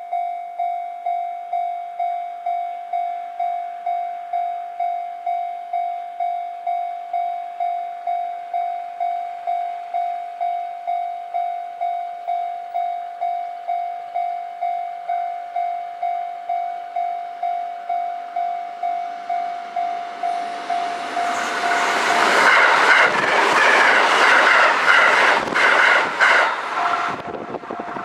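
Level-crossing warning bell ringing in a steady run of evenly repeated electronic dings. About 21 seconds in, a Sanyo Electric Railway 5030-series six-car electric train passes at speed, its wheels clattering over the rail joints and drowning out the bell for several seconds. The bell then rings on.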